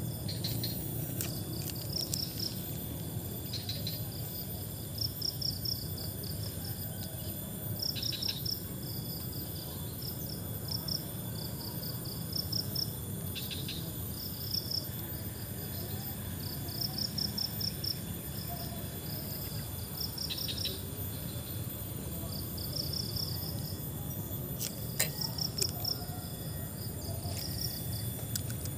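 Crickets chirping in short, rapid pulsed trills that repeat every second or so, with a few sharp clicks near the end.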